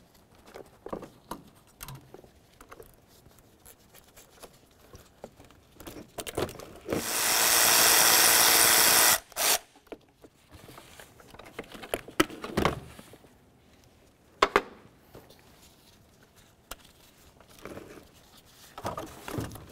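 A cordless power tool runs once for about two and a half seconds, loosening a nut on the car battery's terminals or hold-down. Around it come scattered light clicks and clacks of metal parts and tools being handled, two of them sharper a few seconds after the tool stops.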